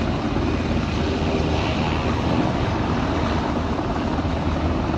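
Jet airliner noise running steadily: an even rush of engine and airflow with a constant low hum beneath it.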